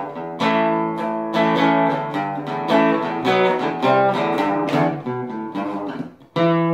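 Guitar music, notes plucked and chords strummed. There is a brief drop near the end, then a final chord left ringing.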